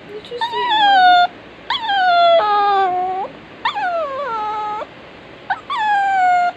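Pomeranian whining in long, drawn-out cries, four in a row, each starting high and sliding down in pitch.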